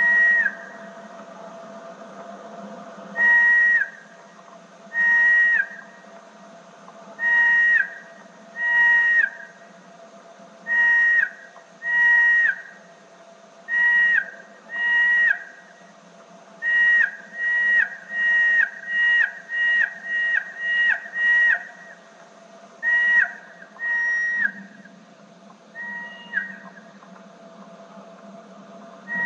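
Mustached bat (Pteronotus parnellii) echolocation calls slowed down on tape playback, heard as a series of whistles. Each is a held steady note that drops in pitch at its end. The calls come a second or two apart, speed up to about two a second in the middle, then spread out again.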